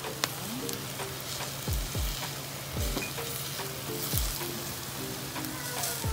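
Chicken sizzling in hot oil in a pan, a steady crackling hiss. Background music with a thumping beat plays over it.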